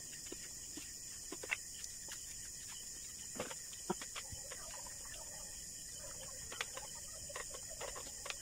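Quiet eating at a table: a handful of scattered light clicks and taps from hands, plates and glassware, over a steady hiss.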